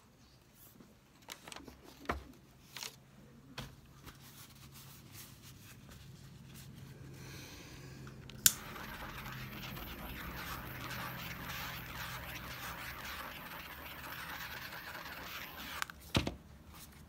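A few light taps and knocks, then a small handheld butane torch clicks alight about halfway through and hisses steadily for about seven seconds before it shuts off with a knock.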